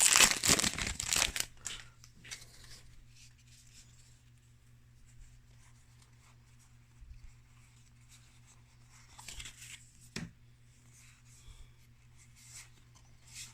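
Magic: The Gathering booster pack's foil wrapper torn open and crinkled for the first second or two. After that there are only faint rustles and a few light taps as the cards are handled.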